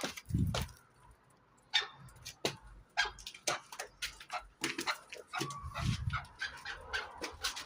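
Partridges fighting: calling and scuffling in a quick, irregular run of short sharp sounds.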